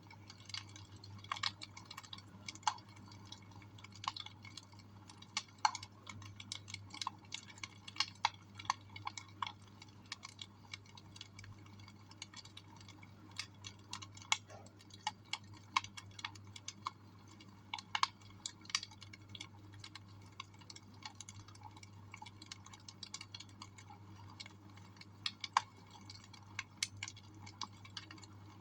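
Wood fire crackling in a fireplace: irregular sharp snaps and pops of varying loudness over a low steady hum.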